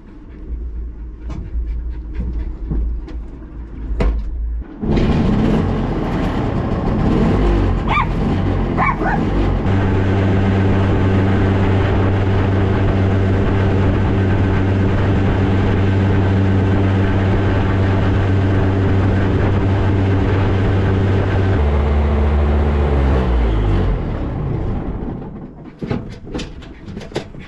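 Piaggio Ape 50's small two-stroke engine idling, then pulling away loudly about five seconds in and running at a steady pitch while driving, before its pitch drops and falls away as it slows near the end. A dog gives a few short whines around eight to nine seconds in.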